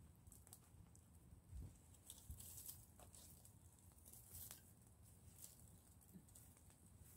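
Open wood fire crackling faintly, with irregular sharp pops.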